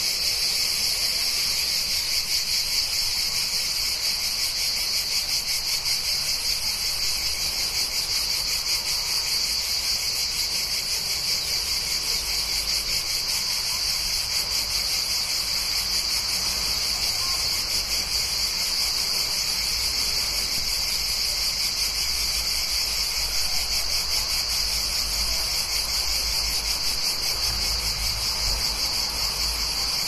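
Cicadas buzzing in a steady, dense, high-pitched chorus. In the second half a faint low rumble of traffic comes in beneath it.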